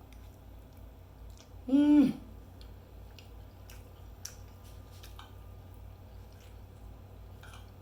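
A person chewing a mouthful of food, with faint scattered mouth and utensil clicks. About two seconds in there is one short hummed "mm" of enjoyment.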